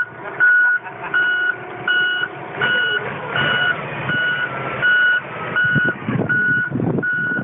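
Reversing alarm of a New Holland wheel loader beeping at an even pace, about three beeps every two seconds, over the machine's running engine.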